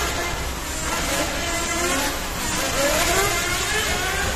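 Electric motors of 1/10-scale on-road RC touring cars whining, rising and falling in pitch as the cars speed up and slow down, over a steady rushing background.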